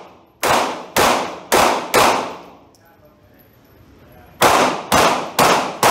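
Handgun fired at an indoor range: four quick shots about half a second apart, a pause of about two and a half seconds, then four more quick shots. Each shot rings out with a long echo off the range walls.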